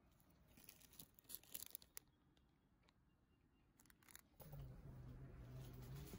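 Faint clicks and crinkles of cellophane-wrapped candy favours being handled, then a low steady hum that starts about four and a half seconds in.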